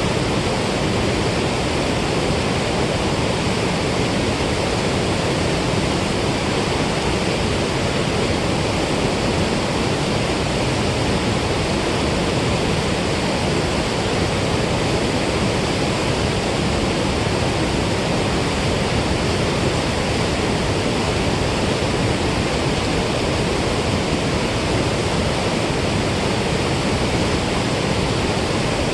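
Water rushing steadily through a dam spillway, a loud, even roar of released lake water with no breaks.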